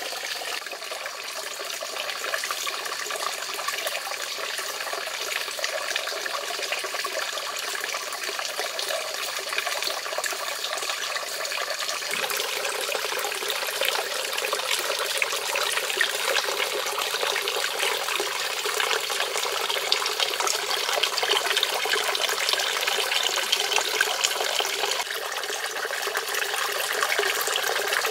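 Water trickling and splashing steadily into a small pond from a fountain, a little brighter about halfway through.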